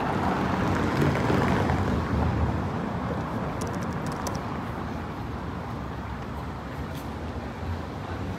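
City street traffic: a motor vehicle passes, loudest in the first two seconds or so, then an even hum of traffic carries on. A few light clicks come about four seconds in.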